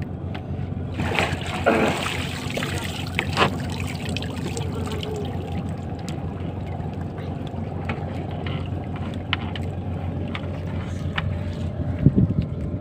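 A boat engine idling steadily with a low hum. Water splashes against the hull about one to two seconds in, with a few knocks.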